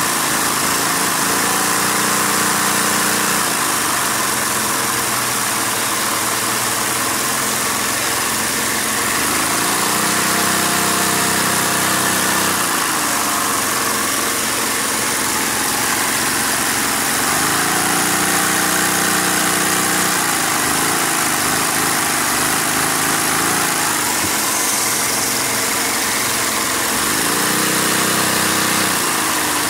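Lego V-twin vacuum engine running on a vacuum cleaner's suction, its pitch rising for a few seconds and then settling back about three times as the throttle is worked. The steady rush of the vacuum cleaner runs underneath.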